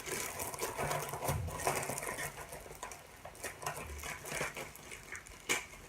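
Plastic parcel packaging rustling and crinkling as it is handled, a quick irregular run of small clicks and crackles.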